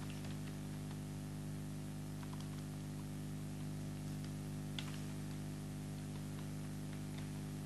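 Steady electrical hum with a few scattered faint clicks from computer keyboard keystrokes as a word is typed.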